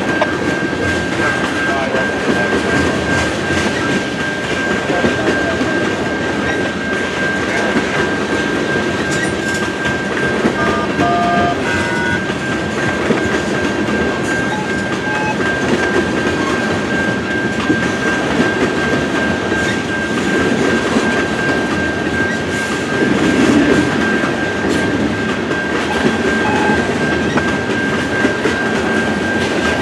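Freight train of tank cars and covered hoppers rolling through a level crossing, wheels clacking over the rail joints. A Siemens low-tone electronic crossing bell rings without pause over the train noise.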